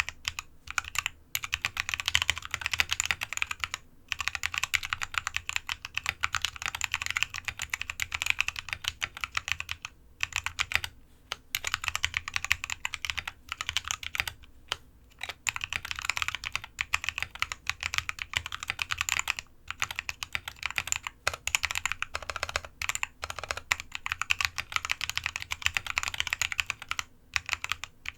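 Modded Anne Pro 2 mechanical keyboard being typed on at a steady, slow pace: Halo Clear tactile switches lubed with Krytox 205g0 and fitted with 65 g springs, in an aluminium case with dampening foam and PBT XDA keycaps. Continuous runs of keystrokes with short pauses between words.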